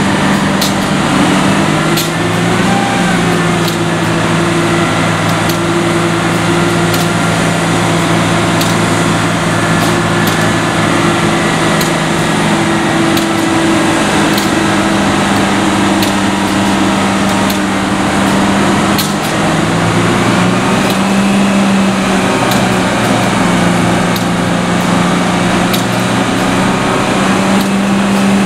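Diesel engine of a truck-mounted crane running steadily under load while hoisting, its pitch shifting slightly a few times, with scattered sharp metallic knocks.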